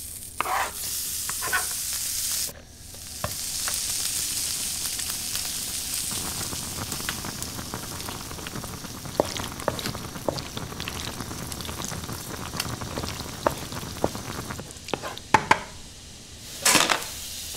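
Chopped tomatoes and onions sizzling in a frying pan on a gas range, with a spatula scraping and tapping against the pan as the sauce is stirred. The sizzle breaks off briefly about two and a half seconds in, then carries on.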